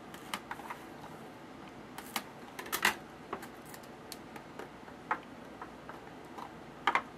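Trading card pack being opened and its cards handled: scattered light clicks and crinkles, with a louder cluster about three seconds in and a sharp snap near the end.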